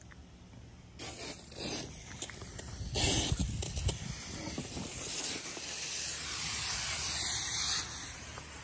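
Garden hose spraying water onto grass and soil: a steady hiss that starts about a second in.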